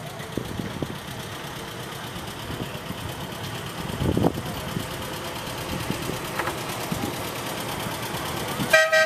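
Miniature train locomotive's engine running as it approaches, growing gradually louder, with a few knocks along the way and a short horn toot near the end.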